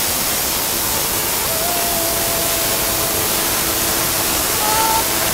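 Tesla coil discharging continuously, its arcs striking a large hand-held glass flask pumped down towards vacuum: a loud, steady hiss of sparks.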